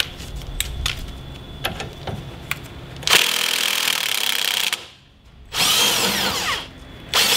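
Milwaukee cordless impact wrench working the 17 mm bolt on the front suspension fork to loosen it, in two bursts of about a second and a half and one second, with a third starting near the end. A few light tool clicks come before the first burst.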